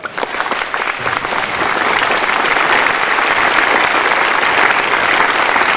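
Audience applauding: many hands clapping, building up over the first couple of seconds and then holding steady.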